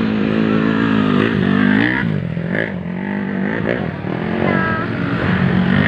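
Dirt bike engine revving as the bike rides past on a muddy motocross track. The pitch rises and falls several times with the throttle and gear changes, climbing over the first two seconds and then dropping.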